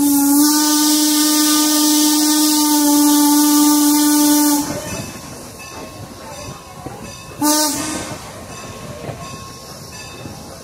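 Norfolk & Western #475 steam locomotive's whistle: one long steady blast of about four and a half seconds, then a short blast about seven and a half seconds in, each with a hiss of steam. Between the blasts the train is heard rolling along the track.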